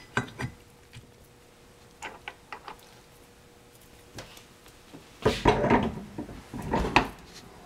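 Eaton Posi limited-slip differential case being handled and set down onto a shaft held in a bench vise: a few light metal clicks, then about five seconds in a louder run of metal clunks and rattles from the case and its gears, with a sharp knock near the end.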